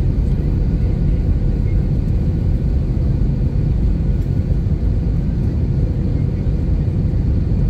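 Steady low cabin roar of an Airbus A320-family jet's engines and airflow, heard from inside the cabin on short final approach just before touchdown.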